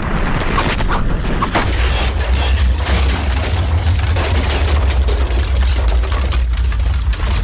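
Volcanic eruption: a continuous deep rumble with frequent sharp cracks and booms.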